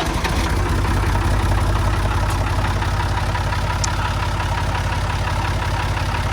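Backhoe loader's engine idling steadily just after it has fired up, on its first run after the water pump and radiator were refitted.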